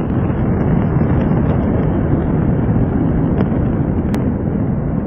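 Slowed-down recording of a large fire and explosion: a loud, continuous low rumbling noise with no sharp onset, and a single sharp click about four seconds in.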